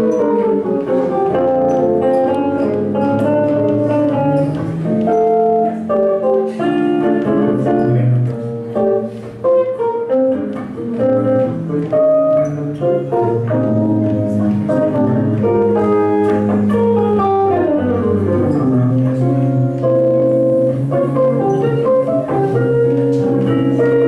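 Jazz guitar duo playing: two guitars trading chords and single-note lines, with a run of falling notes about two-thirds of the way through.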